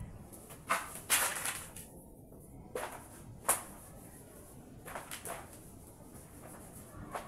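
Marker writing being wiped off a whiteboard: about six quick rubbing strokes of the duster across the board.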